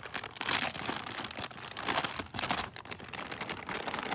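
Crinkling and crunching as crackers are handled, in irregular bursts.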